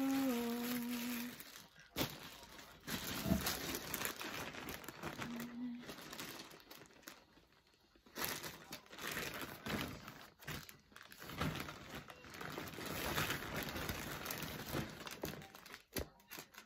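Plastic packaging crinkling and rustling in uneven bursts with short pauses as a newly delivered bag is unwrapped. A woman hums briefly at the start.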